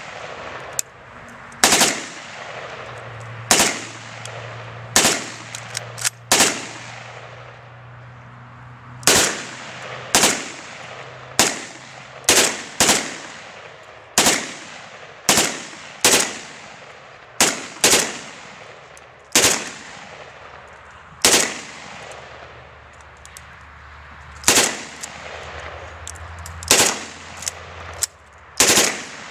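Single shots from an AKS-74U carbine and other 5.45×39 Kalashnikov rifles, fired one at a time about every one to two seconds at an uneven pace, each with a short echo. Some shots are louder than others, and a few come in quick pairs.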